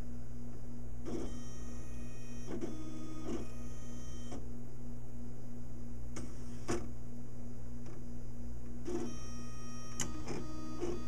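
Primera Bravo II disc publisher's robotic arm moving a disc to the burner: its motors run in several short stretches with a whine of several steady tones, with a few sharp clicks between runs, over a steady low hum from the machine.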